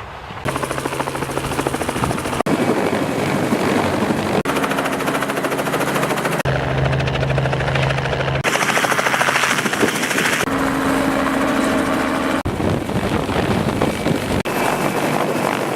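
Helicopter rotor and engine running in flight. The sound changes abruptly about every two seconds, as one short recording gives way to the next.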